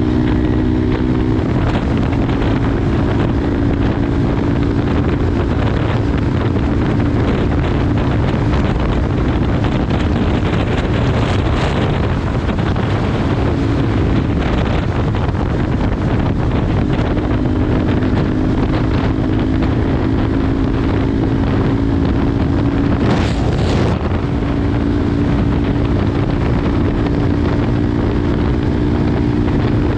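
Motorcycle engine running at a steady cruise, with heavy wind noise buffeting the microphone. A short burst of noise comes about three quarters of the way through.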